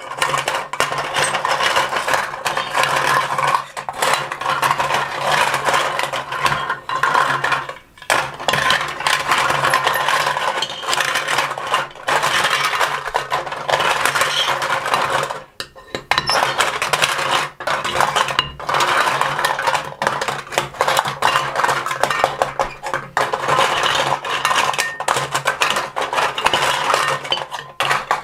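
Plastic toy fruit and vegetable pieces clattering and rattling against each other as they are stirred in a toy pot: a busy, continuous clatter with a few short pauses.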